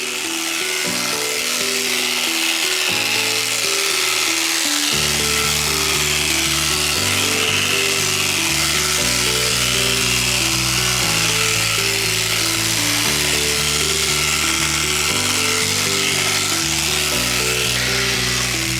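Background music with a bass line that fills in about five seconds in, over the steady high buzz of electric alpaca-shearing clippers.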